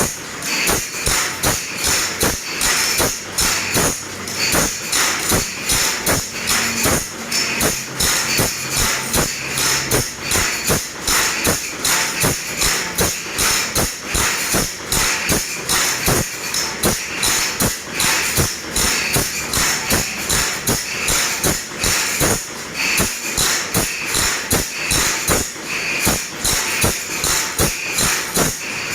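Metal file rasping across the teeth of a large crosscut hand saw (gergaji selendang) as it is sharpened, in quick, even strokes about two to three a second.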